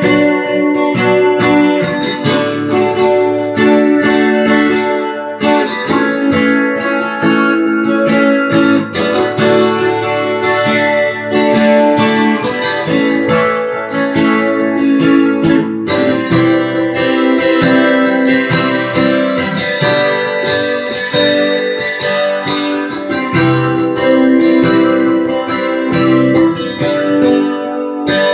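Taylor twelve-string acoustic guitar played unaccompanied, with a run of picked and strummed chords.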